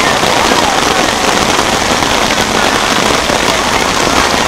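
Rain falling on umbrellas: a dense, steady crackling hiss of countless drops.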